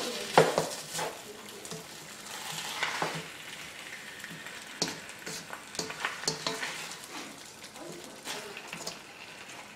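Sliced chicken in a melted queso and mozzarella sauce sizzling in a nonstick skillet while a utensil stirs it, with a steady hiss broken by repeated short scrapes and taps of the utensil against the pan.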